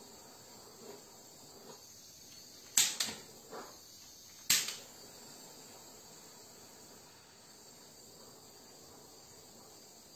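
Kitchen blowtorch clicking: about four sharp igniter clicks between three and five seconds in, over a faint, steady high-pitched hiss.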